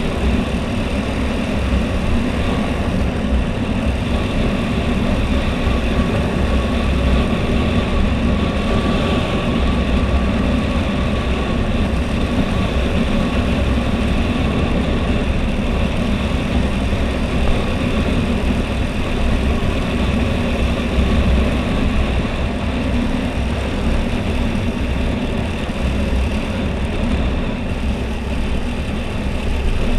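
Husqvarna Svartpilen 401's single-cylinder engine with its stock exhaust, running steadily on the move, mixed with an even rush of wind and road noise.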